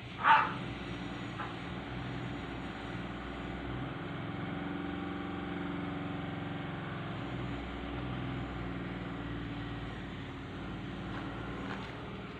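A motor vehicle's engine running steadily, a low hum that swells and eases slightly. A single dog bark sounds just after the start.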